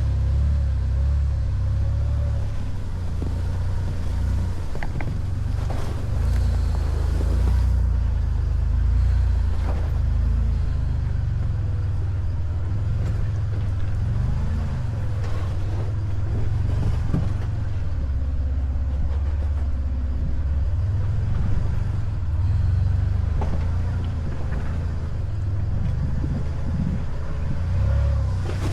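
Off-road vehicle's engine running at low revs while crawling over the trail, a steady low rumble with a few scattered knocks.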